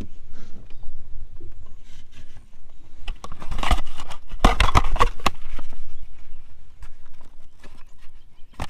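A crappie flopping inside a hard plastic fish-weighing tube while it is handled: a flurry of rapid knocks, rattles and scrapes about three to five seconds in, scattered lighter clicks around it, and one sharp knock near the end.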